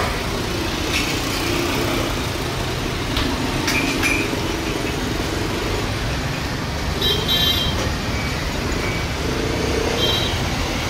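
Steady distant jet-engine rumble from an Airbus A320 taxiing at idle thrust. Short high chirps sound about 7 s in and again near the end.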